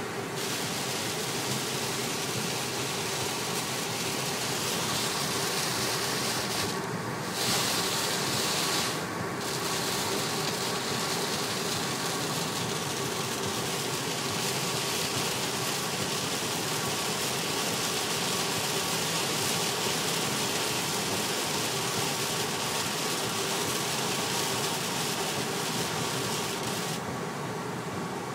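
Steady road noise from a car driving through heavy rain on a wet motorway, heard from inside the cabin: the hiss of tyres on standing water and rain on the car, over a low engine hum. The high hiss dips briefly twice about seven and nine seconds in, and again near the end.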